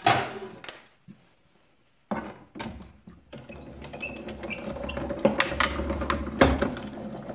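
Clear plastic cutting plates clatter and knock as the die sandwich is set up. From about three seconds in, a Press Boss die-cutting and embossing machine draws the plates, die and cardstock through its rollers: a steady mechanical running with scattered clicks, cutting the shape out of the card.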